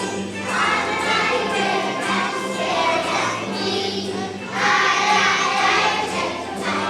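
A group of young children singing together with musical accompaniment, swelling louder about two-thirds of the way through.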